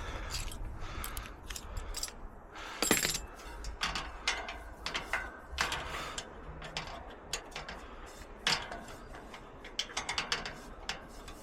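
Screwdriver working on the bottom screw of an Adams Rite gate lock: irregular small metal clicks and scrapes, with a sharper knock about three seconds in.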